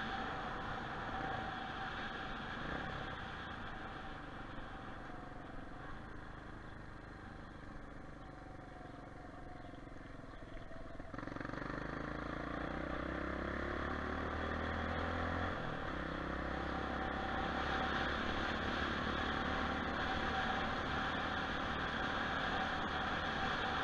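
Motorcycle engine running while riding. It eases off and goes quieter, then about halfway through it picks up again, rising in pitch and getting louder, with a change in tone a few seconds later.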